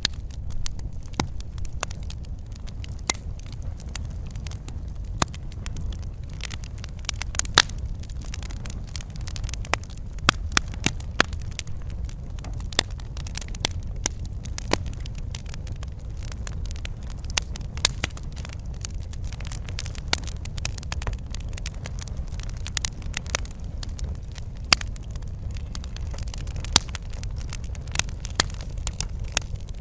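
Wood fire burning in a fireplace, with a steady low rumble and frequent irregular sharp crackles and pops.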